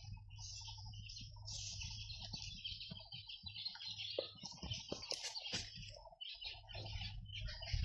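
Small birds chirping and twittering continuously in a dense, high-pitched chatter.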